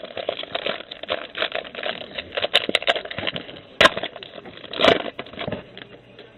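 Trading cards and their packaging being handled, a dense crinkling and crackling, with two sharp snaps a little past the middle.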